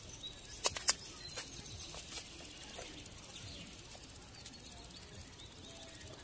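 Horse blanket strap and buckle being handled: two sharp clicks close together about a second in, then a quiet rural background with a few faint bird chirps.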